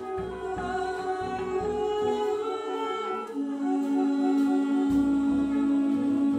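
Live jazz big band music: long held, wordless sung notes over sustained saxophone and brass chords, with double bass underneath. About halfway through, a new long, lower held note comes in.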